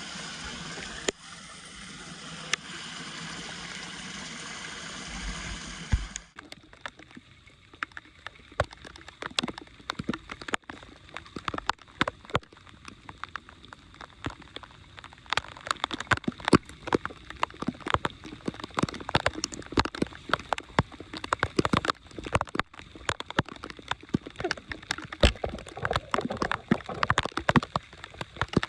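Draining floodwater: a steady rush of water that changes abruptly about six seconds in to irregular gurgling and splashing, the splashes growing busier toward the end.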